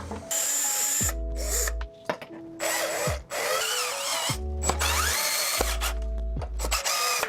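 Cordless power drill running in several short bursts with a whining motor, driving screws to fasten a wooden stair railing to the wall, over background music.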